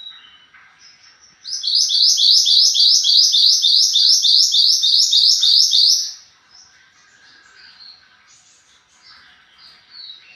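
Mantenan gunung songbird singing: a loud, rapid trill of about fifteen repeated high, downward-sweeping notes lasting about four seconds, then softer scattered chirps.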